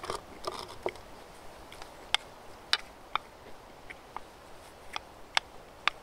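Eating sounds during a meal of spicy pork and vegetable wraps: a brief rustle and chewing near the start, then about seven sharp, irregular clicks and crunches over the following four seconds.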